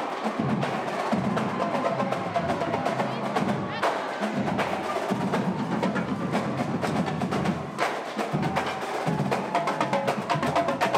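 Marching drumline playing a fast cadence on snare drums and tenor drums, with dense, sharp strokes.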